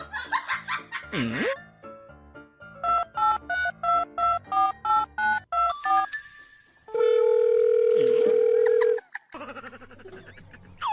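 Telephone keypad tones dialing about a dozen digits in quick succession, followed by a steady two-second ringing tone on the line. A short sound sliding down and back up in pitch comes first.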